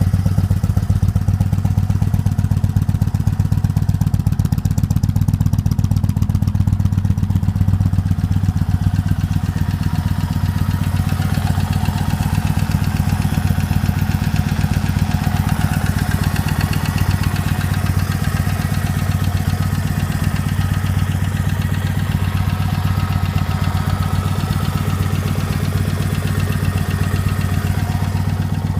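Motorcycle engine idling steadily at an even speed, with no revving.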